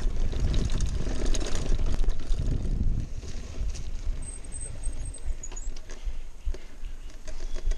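Mountain bike riding a muddy single-track trail: wind buffeting the microphone and a low rumble, with scattered clicks and rattles. The rumble is heaviest for the first three seconds or so, then eases.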